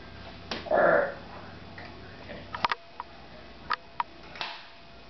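A short, loud sniff-like breath about a second in, then a few light, sharp clicks as a stainless-steel drop-weight egg topper is lifted and handled, with another soft breath near the end.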